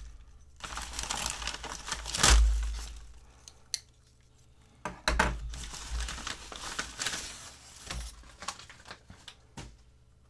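A white padded paper mailer envelope being torn open and crinkled by hand, in two spells of rustling with a pause between. Several dull knocks sound as the package is handled on a wooden table, the loudest about two seconds in.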